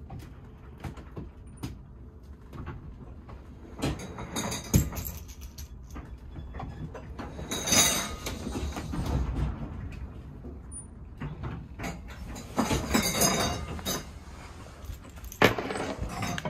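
Doors and loose objects in a ship's cabin sliding, rattling and knocking on their own as the ship rolls in a heavy swell. The knocks come in several bunches, the loudest about eight seconds in and again between twelve and fourteen seconds.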